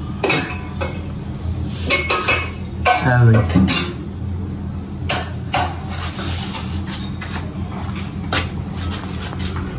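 Stainless steel pots, lids and utensils clinking and clattering against each other as they are washed by hand, in a run of separate sharp clanks.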